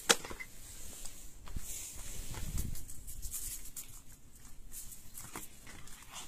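Handling noise from a phone being moved about, with cloth rustling against it. There is one sharp click right at the start and scattered light taps after it.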